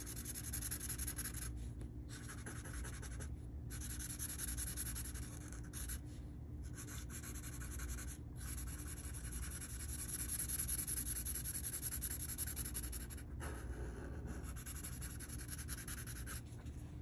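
Sharpie fine-point permanent marker tip scratching over paper in quick back-and-forth coloring strokes, stopping briefly a few times.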